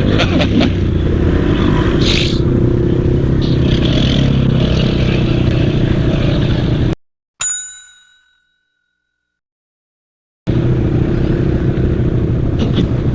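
ATV engine running under way on a dirt trail, with rattling and clatter. About seven seconds in the sound cuts off abruptly, a single bell-like ding rings and fades over about a second, and after about three seconds of silence the engine sound returns.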